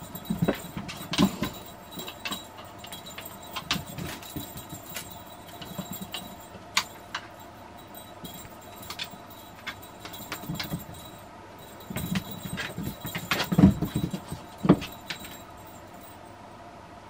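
A Birman cat playing on a wooden floor: scattered taps, scrapes and knocks from its paws and claws, with a run of louder thumps and knocks about three-quarters of the way through, over a faint steady hum.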